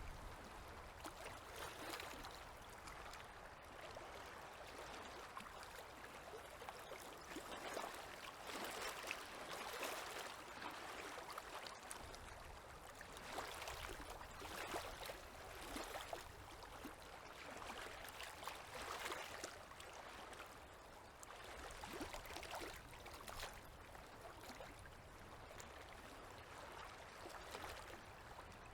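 Small river waves lapping gently, with faint, irregular little splashes over a steady wash of water.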